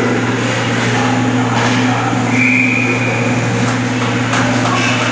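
A referee's whistle blows one steady blast of about a second, a little past the middle, stopping play. Under it runs a steady low hum in the ice arena, with a few short knocks of sticks or puck near the end.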